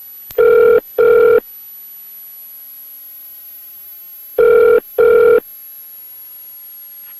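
Telephone ringback tone heard down the line while a call rings out: a double ring, two short steady beeps close together, heard twice about four seconds apart over a steady hiss on the line.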